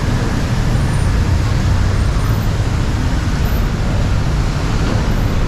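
Steady city road traffic noise with a deep, continuous rumble of passing vehicles.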